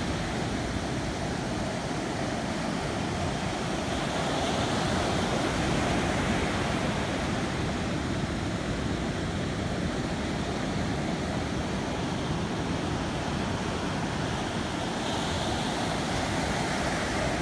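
Ocean surf breaking and washing up the sand in a steady rush that swells and eases slowly, with a low rumble of wind on the microphone.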